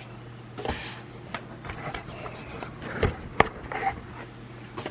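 Scattered handling clicks and knocks from the camcorder and its AV lead connectors, with two sharp clicks about three seconds in, over a steady low hum.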